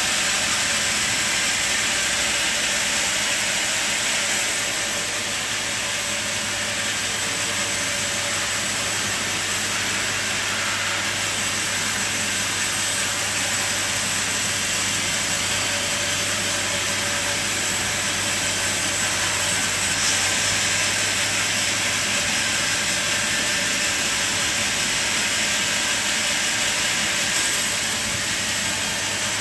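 Sawmill machine running steadily, a constant motor hum under strong hiss.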